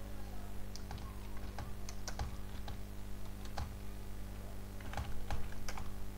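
Typing on a computer keyboard: irregular keystrokes, a few a second, over a steady low hum.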